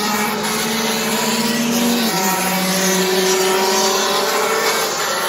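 Racing kart engines running hard as several karts lap the circuit, their engine notes at different pitches overlapping; one note drops in pitch about two seconds in.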